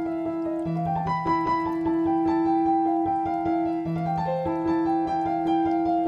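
Background music: a piano or keyboard melody over held bass notes that change every few seconds.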